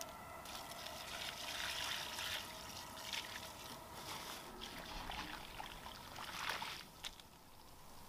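Boiling water poured from a stainless steel stockpot into a frozen, soil-filled stone urn, splashing and trickling onto the soil for about six seconds before stopping. The hot water is thawing the frozen potting soil.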